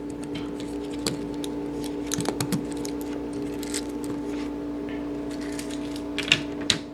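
Light plastic clicks and rattles as a Cherry-style keyboard stabilizer is pinched at its legs and pushed out of the keyboard plate. A steady low hum runs underneath.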